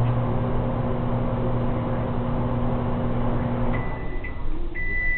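Microwave oven running with a steady hum during a five-second heating run on an empty chip bag, cutting off suddenly a little under four seconds in, followed by a few short high beeps as the run ends.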